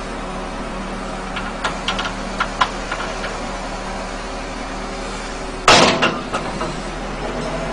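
JCB backhoe loader's diesel engine running steadily, with a few sharp metal clanks, then one loud crash about six seconds in as the load in its bucket lands in the steel bed of a dump truck.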